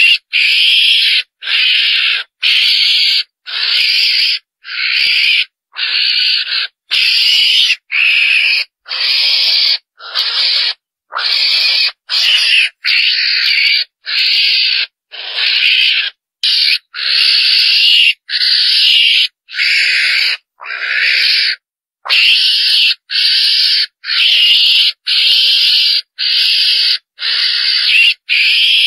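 Repeated harsh, hissy squealing calls of a chồn đèn, a small wild carnivore, used as a hunting lure call to draw others in. Each call lasts about half a second, with short silent gaps, a little more than one a second in a steady series that sounds looped.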